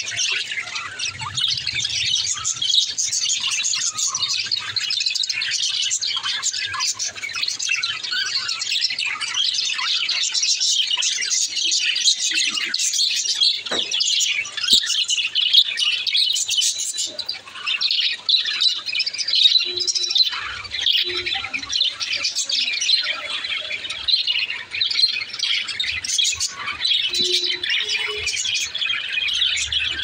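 A flock of budgerigars chirping and chattering continuously, many birds calling over one another at once.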